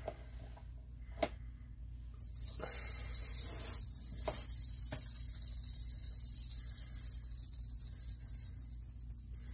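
Rattlesnake rattling its tail: a steady, high-pitched buzz that starts suddenly about two seconds in and keeps going, the snake's defensive warning. A few light knocks come before and just after it starts.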